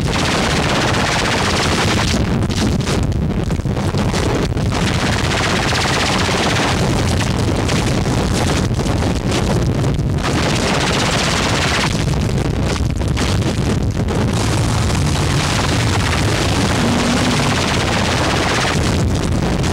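Loud, continuous harsh noise, dense from deep rumble to hiss. Its upper range drops out and comes back every couple of seconds.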